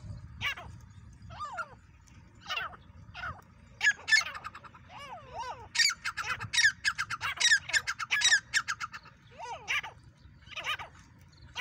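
Francolins (teetar) calling loudly and repeatedly, with a rapid run of calls in the middle.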